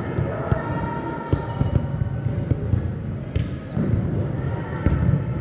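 Volleyballs being hit and bouncing on a gym floor: a string of sharp smacks, several close together about a second in and single ones later, echoing in a large hall.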